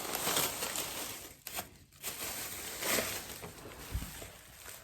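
Rustling and handling noises as items are moved about and set into a tray, with a low thump about four seconds in.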